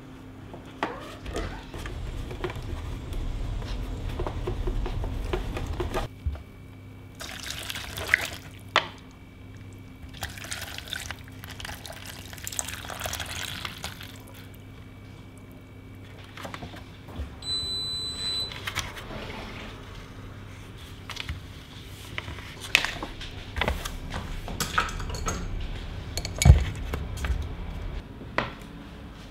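Water poured from a saucepan into a paper cup of instant wontons, with seasoning packets rustling before it. A short high beep comes midway, and near the end the cup is set down on a wooden table with one sharp knock.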